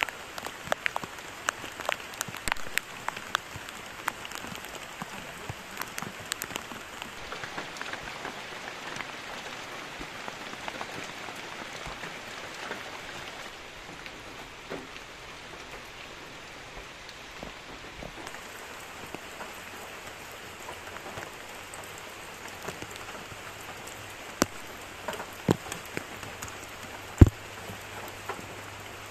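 Heavy tropical rain falling steadily, with sharp drips landing close by. A few louder single drip hits come near the end.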